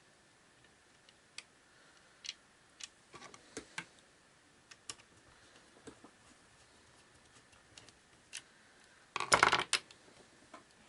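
Scattered light clicks and taps of small plastic clock-radio parts being handled, with a short burst of louder rattling clicks about nine seconds in.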